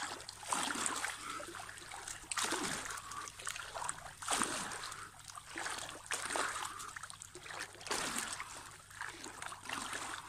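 Pool water splashing and sloshing as both arms sweep forward and back through it, in surges about every two seconds.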